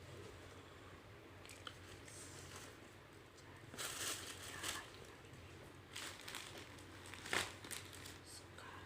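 Packaging crinkling as it is handled, in a few short rustling bursts about four, six and seven seconds in, the last the loudest.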